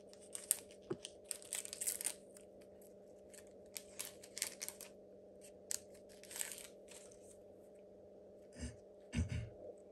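Foil wrapper of a Pokémon TCG booster pack being torn open and the cards handled: clusters of short crinkling, tearing and scraping rustles, with two low thumps near the end.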